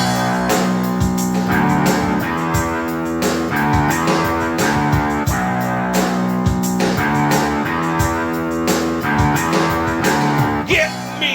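Instrumental intro of a rock song: guitar playing chords over bass with a steady beat.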